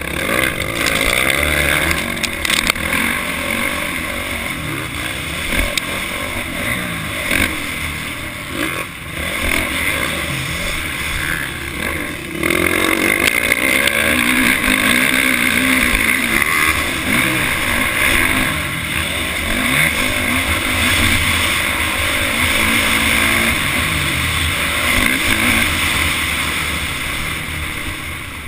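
Dirt bike engine revving up and down as it is ridden, heard from on the bike itself. It opens up harder about twelve seconds in.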